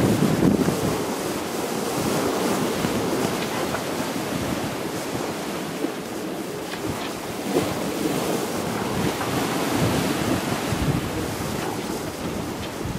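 Rushing of wind on the microphone and of water along a sailboat's hull as it sails a brisk downwind course at about 8 knots under its headsail; a steady noise that swells and eases with the gusts and the chop.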